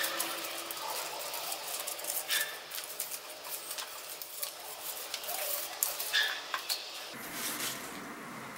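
Strips of paper rustling and crinkling as they are handled and pulled apart, in quick irregular crackles and light clicks.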